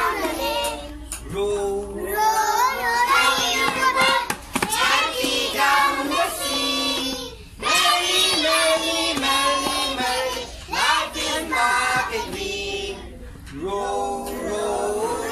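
A group of young children singing a song together, with a woman's voice singing along and leading them.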